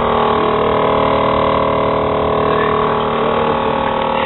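Train horn fitted to a BMW X5, blowing one long, steady chord of several notes at once.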